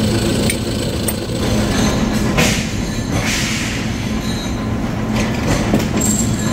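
Workshop machinery running with a steady low motor hum and rumble, a drill press drilling steel sprocket blanks among it, with short hissing, grating swells every second or so.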